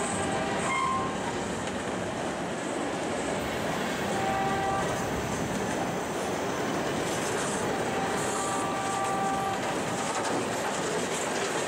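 Freight train of covered hoppers and boxcars rolling past close by: steel wheels on the rails give a steady rumble and clatter as the cars go by.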